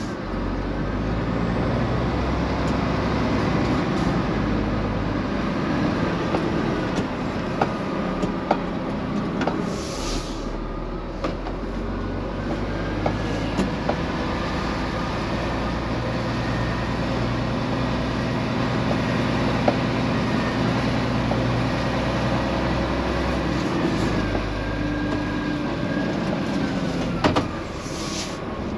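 Scania truck's diesel engine and drivetrain heard from inside the cab, running steadily at low speed, with a faint gliding whine and scattered clicks and rattles. A short hiss of air about ten seconds in and again near the end.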